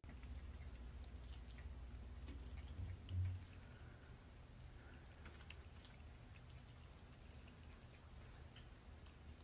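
Ring-tailed lemurs chewing, faint small clicks and smacks scattered throughout, with a single dull low thump about three seconds in.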